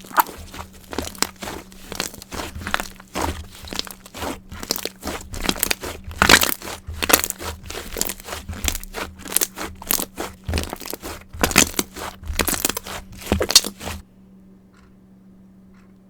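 Mirror slime being squeezed and stretched by hand, giving a dense, irregular run of crackling pops and sticky clicks that stops abruptly about fourteen seconds in.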